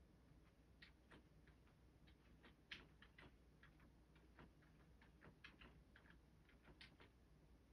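Cat licking itself while grooming: faint, irregular wet clicks of the tongue, about three or four a second.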